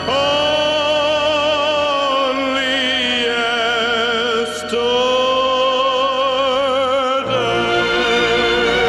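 Male vocalist holding long, sustained notes with wide vibrato over an orchestral accompaniment, with a brief break for breath about four and a half seconds in. Around seven seconds in the held note ends and the orchestra, with strings, carries on.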